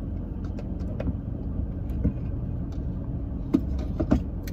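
Steady low hum of a car cabin, the sound of a vehicle sitting with its engine or ventilation running. A few light clicks and taps of a plastic cup and straw being handled, the two sharpest about three and a half and four seconds in.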